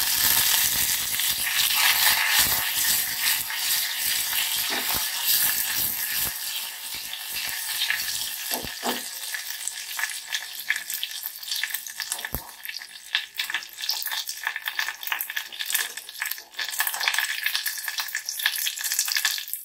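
Tadka sizzling: mustard seeds, dried red chillies and curry leaves spluttering in hot cooking oil in a saucepan. It is loudest in the first few seconds, just after the curry leaves go in, then eases to a steadier sizzle with scattered crackles.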